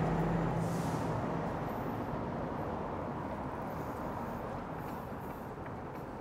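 A steady low hum and hiss that slowly fades, with faint sounds of a knife slicing through a slab of smoked bacon on a wooden cutting board.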